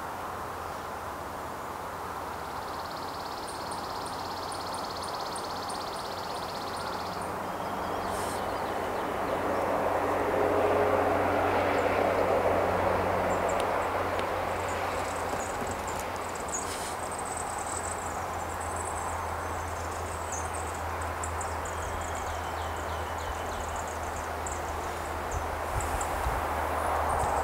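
Outdoor ambience: a steady low rumble and hum of distant vehicle noise, swelling for a few seconds about ten seconds in, with a run of faint high ticking early on and faint high chirps in the second half.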